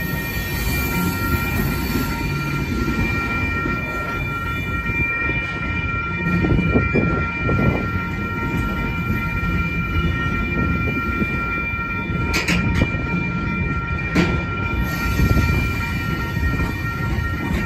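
Freight train of covered hopper cars rolling past at a grade crossing: a steady low rumble and clatter of wheels on rail. A high-pitched ringing holds throughout, and two sharp metallic clanks come about 12 and 14 seconds in.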